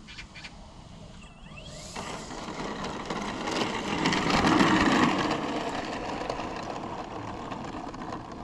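Radio-controlled model Cessna 208 Grand Caravan running along a dirt and gravel strip on its propeller, passing close by. The sound grows louder to a peak about four to five seconds in, then fades as the plane moves away.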